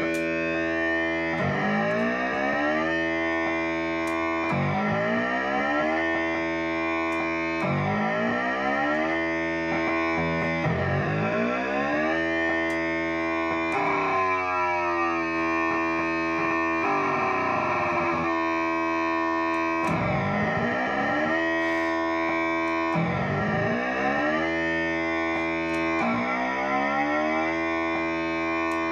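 Distorted instrument played through effects: a sustained, many-voiced drone with a swooping sweep about every one and a half seconds.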